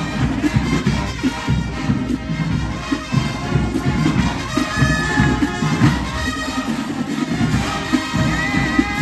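HBCU show-style marching band playing: full brass section over a driving drumline. The drums drop back for a moment about seven seconds in.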